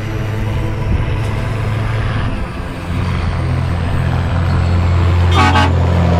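Mercedes-Benz Unimog truck with a new twin-stack exhaust driving past, its diesel engine note growing louder as it approaches. A short horn toot sounds about five and a half seconds in as it comes alongside.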